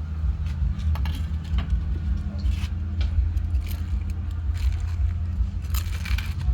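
Batter-coated bananas frying, with scattered metallic clinks and crackles from the utensils and the hot oil over a steady low rumble.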